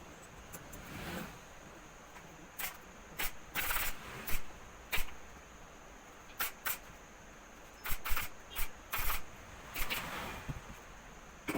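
A series of about a dozen sharp, irregular clicks and knocks from sofa-making work. A couple of them are slightly longer, hissing bursts.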